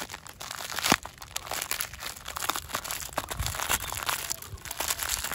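Clear plastic wrapping crinkling in irregular bursts as hands pull it open around a toy autorickshaw, with one sharp crack about a second in.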